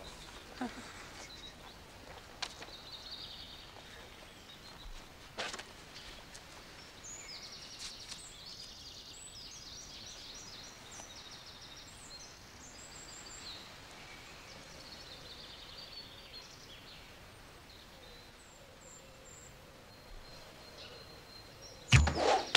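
Quiet woodland ambience with birds chirping in short high bursts through the middle, a few faint knocks, and a sharp loud crack near the end.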